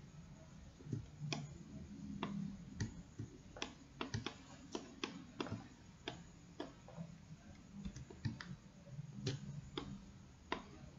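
Irregular, sharp clicks of a computer mouse and keyboard being worked, about eighteen in all, some coming in quick runs around the middle.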